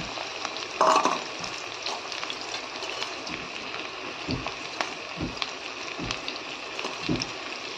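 Sliced onions and garlic sizzling steadily in hot oil with roasted cumin in an iron kadhai, the start of a kadhi tempering. A few soft knocks come in the second half.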